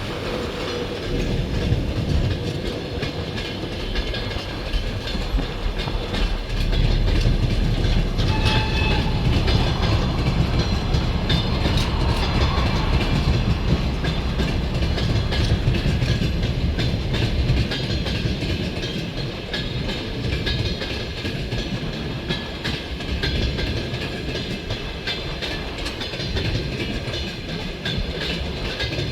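Freight train rolling past, a steady rumble with wheels clattering over the rail joints. A brief high tone sounds about eight seconds in.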